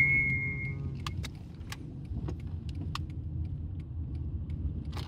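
A whistled tune ends on a long held high note about a second in. After it comes the steady low rumble of a car driving, heard from inside the cabin, with scattered light clicks and rattles.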